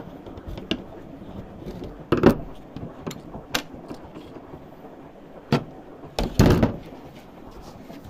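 Scattered clicks and knocks of parts and tools being handled. There is a louder knock about two seconds in and a short cluster of knocks, the loudest, about six and a half seconds in.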